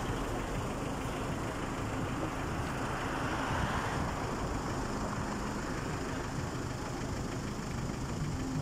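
A motor vehicle engine running steadily with a low hum, over road noise.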